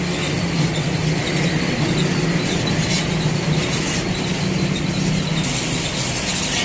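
Pressure washer running with a steady motor hum and a hissing water jet, spraying down an oil-caked motorcycle.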